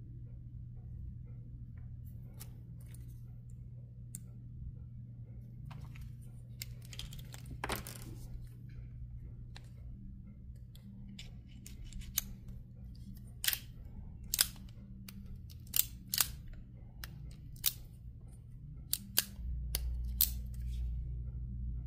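Stainless Colt Cobra .38 Special revolver being handled: a few faint clicks at first, then a run of sharp metallic clicks in the second half as the cylinder is worked open and shut. A steady low hum runs underneath.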